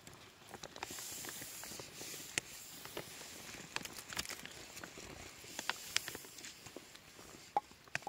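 Fresh herb sprigs being plucked and stripped of their leaves by hand: light rustling with scattered small crackles and clicks.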